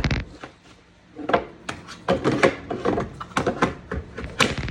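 A rifle magazine being handled and fitted into a U-Loader magazine loader: a run of short clicks, knocks and rubbing, with one sharp click near the end.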